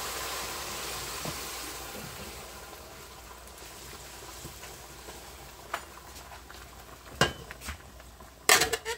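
Garlic fried in pork lard sizzling in a hot pan as the beans are tipped in, the sizzle dying down over the first few seconds. Then come a few sharp clanks of metal pots, the loudest near the end.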